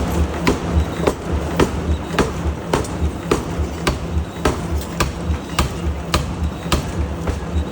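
Background music with a steady beat: a sharp tick about twice a second over a pulsing bass line.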